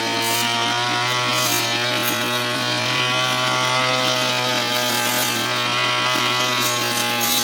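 Brush cutter engine running at high speed while cutting tall, thick grass, its pitch sagging a little under load and picking up again.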